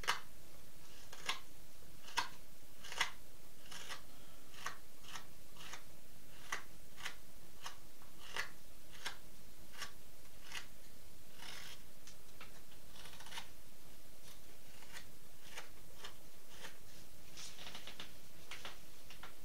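Carving knife paring a pine duck decoy's bill, rounding it off. It makes an irregular string of short, crisp slicing cuts, about one to two a second, with a few sharper cuts in the first three seconds.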